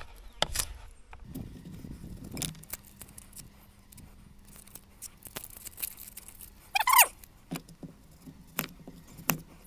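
Kitchen knife on a plastic cutting board, peeling and cutting an onion: scattered light taps and slicing clicks. About seven seconds in there is a short falling squeal.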